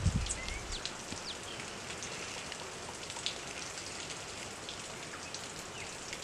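A steady hiss of outdoor background noise, with scattered brief, thin, high bird call notes over it, a short rising one just after the start.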